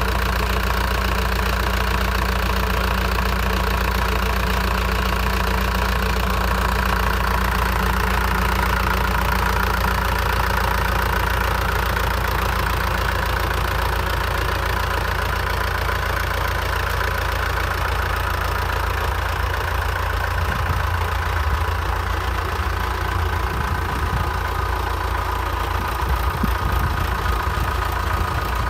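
HMT 5911 tractor's diesel engine running steadily as it pulls a weighted implement through tilled soil. Uneven low rumbles come in over the engine in the last third.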